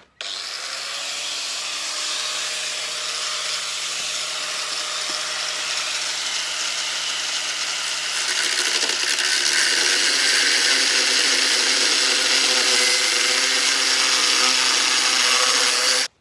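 Electric power tool cutting steel: a steady motor whine with harsh cutting noise, growing louder about halfway through and stopping abruptly.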